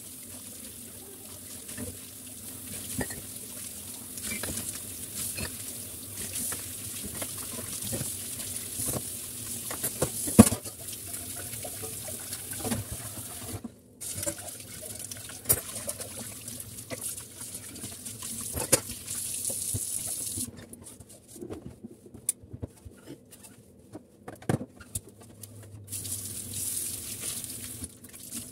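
Kitchen tap running into a stainless steel sink while dishes are rinsed, with sharp clinks of crockery against the sink. The water stops about two-thirds of the way through, leaving scattered clinks and rubbing as a dishcloth is scrubbed and wrung.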